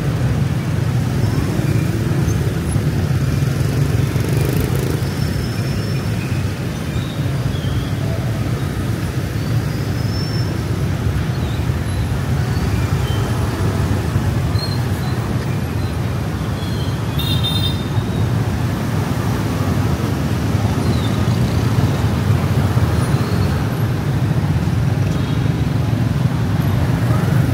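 Steady city street traffic noise: the engines and tyres of passing vehicles run together without a break.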